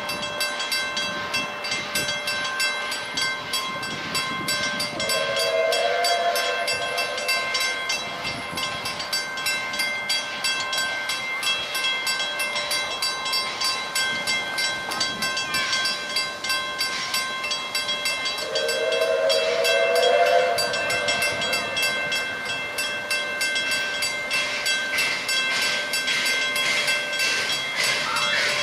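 Level crossing bells ringing in a fast, even rhythm, with two blasts of about two seconds each from the steam whistle of NGG16 Garratt locomotive No. 129, one about five seconds in and the louder one about fourteen seconds later.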